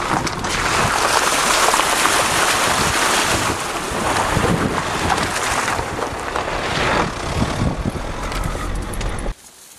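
Wind rushing over a microphone held out of the open window of a 2010 Ford Tourneo Connect driving fast on a dirt track, with tyre and road rumble beneath. The sound cuts off suddenly near the end.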